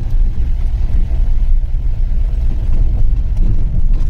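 Steady low rumble of a vehicle riding along a rough forest road, heard from on board, with uneven rises and falls in loudness.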